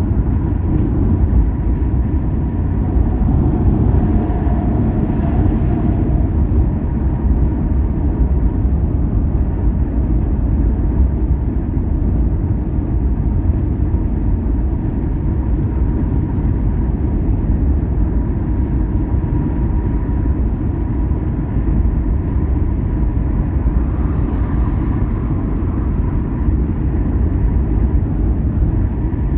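Car driving along a road: a steady low rumble of tyres and engine with a faint steady high hum, swelling briefly twice, near the start and near the end.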